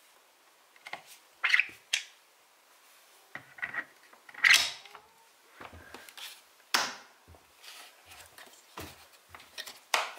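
Scattered hard plastic clicks and knocks as a Stokke Xplory X stroller's front swivel wheel is handled and fitted onto its chassis leg, the loudest about halfway through.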